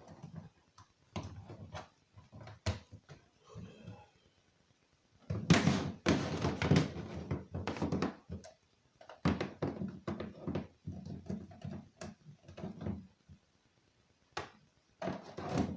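Irregular clicks, knocks and rustling of objects being handled by hand, with two denser spells of clatter in the middle.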